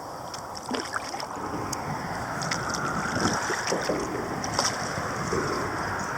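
Water lapping and splashing around a kayak in a steady wash of wind noise on the microphone, with small irregular splashes and knocks throughout.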